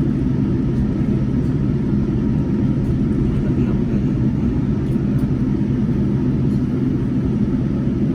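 Boeing 787-10 jet engines idling, with the airliner's cabin air hum, heard inside the passenger cabin while the plane holds on the runway before the takeoff run: a steady low drone with no change in pitch or loudness.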